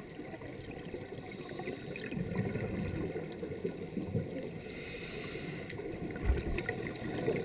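Muffled underwater rumble through a camera housing, with low bubbling gurgles from scuba divers' exhaled air swelling a couple of seconds in and again briefly near the end.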